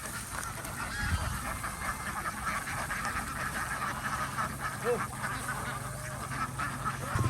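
A flock of ducks quacking, many calls overlapping, with a few louder single quacks about five seconds in. A steady low hum runs underneath.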